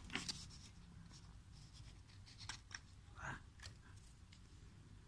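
Faint handling sounds from a circuit board and a pulled MOSFET: a few light ticks and a short scrape.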